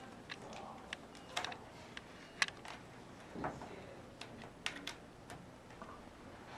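Irregular light clicks and taps, about a dozen, unevenly spaced.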